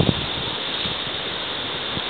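The river Skógá's water rushing, a steady even roar.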